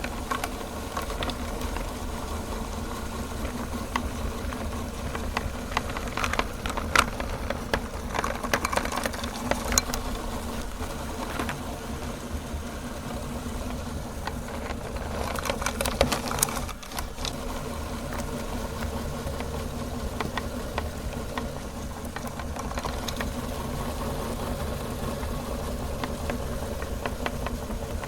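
Electric meat grinder running with a steady motor hum while it crushes chocolate bars, with bursts of crackling and clicking as the pieces break up, busiest about a quarter of the way in and again past the middle.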